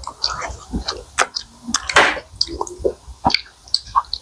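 Close-up eating sounds: chewing McDonald's fries, with wet, squishy mouth noises and irregular small clicks and smacks.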